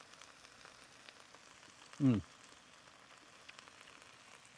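Onions, feta and meat juices sizzling on a hot Pit Boss two-burner griddle, a faint, even crackling hiss. About two seconds in there is one short vocal sound from the cook, falling in pitch.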